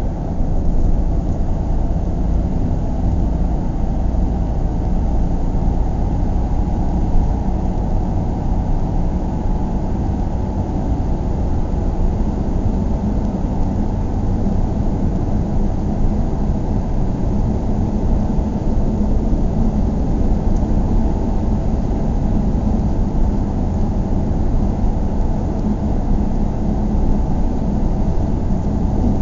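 Steady, muffled low rumble of a car driving, heard from inside the vehicle: tyre and engine noise on a rain-wet road.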